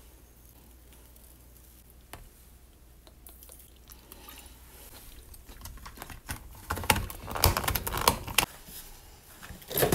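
Liquid faintly poured from a plastic bottle over sliced cucumbers in a plastic tub, then a plastic food-container lid pressed down and snapped shut, a loud run of clicks and crackles over the last three seconds.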